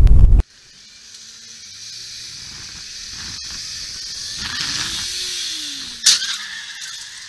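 Wind buffeting the microphone with road noise from a moving car, cut off suddenly about half a second in. Then street-traffic hiss that swells and fades, with one sharp bang about six seconds in.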